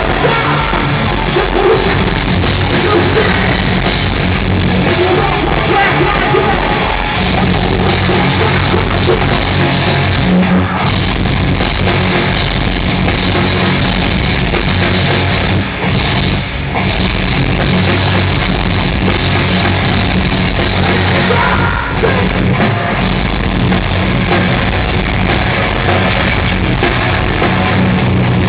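Live heavy rock band playing loud, with singing over the band.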